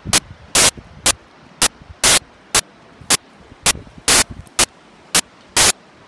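Loud bursts of harsh, static-like crackle about twice a second, some short clicks and some longer blasts, over a low background hiss.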